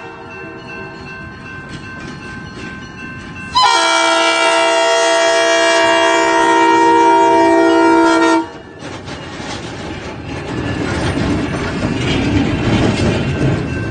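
Diesel locomotive air horn, from the lead Alco 5 switcher, sounding one long multi-tone blast of about five seconds for the road crossing, starting a few seconds in. Then the locomotives' diesel engines and the wheels rolling over the rail joints grow louder as the train passes close by.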